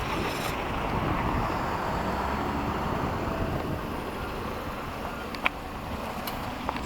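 Steady rush of road traffic from passing vehicles, with a sharp click about five and a half seconds in.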